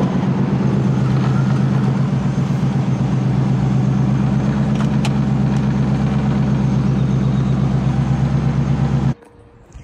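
Turbocharged Ford Coyote V8 in a 2,000 hp Mustang idling at about 970 rpm, heard from inside the cabin: a steady, loud, pulsing low rumble. It cuts off abruptly near the end.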